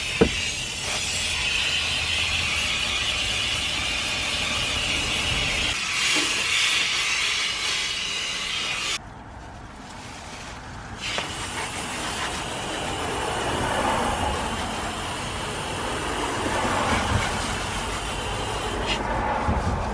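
Steady hissing spray that cuts off suddenly about nine seconds in and starts again about two seconds later.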